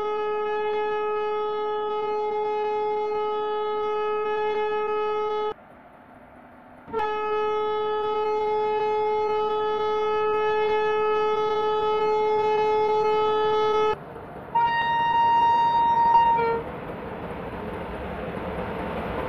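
Train horn sounding two long, steady blasts of about five and seven seconds, followed by a shorter, higher-pitched blast. Near the end the rumble of the approaching train rises.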